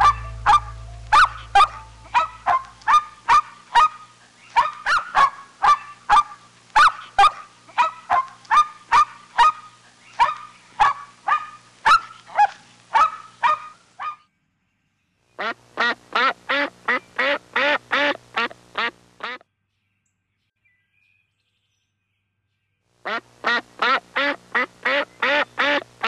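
Waterfowl calling: a long run of repeated honks, about two to three a second, that fades out about halfway through. After a pause come two shorter, faster runs of calls.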